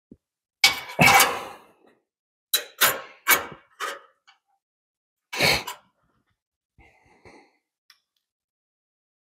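A series of sharp knocks and clanks from metal parts and tools being handled: two close together with a short ring about a second in, several more over the next few seconds, then a few faint taps.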